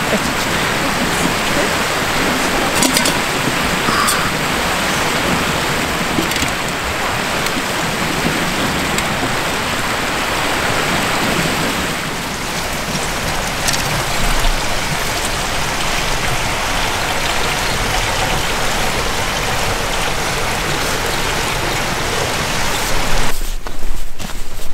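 Steady rushing of a small river's open water at a hole in the snow, then water being poured into a plastic jug. Footsteps in snow near the end.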